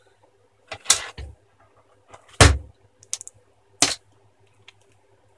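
A handful of sharp knocks and clicks from a Sony Vaio laptop's LCD screen panel being lifted out of its lid and laid face down over the keyboard. The loudest knock, with a dull thump, comes about halfway through.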